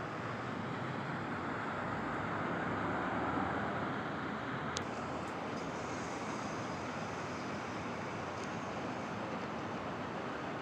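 Steady street traffic noise, swelling as a vehicle passes about three seconds in, with one sharp click near five seconds.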